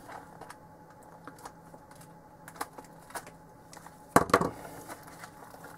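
Faint, scattered clicks of small parts and tools being handled on a workbench, then a louder clatter of a few sharp knocks about four seconds in as a pair of pliers is set down on the bench.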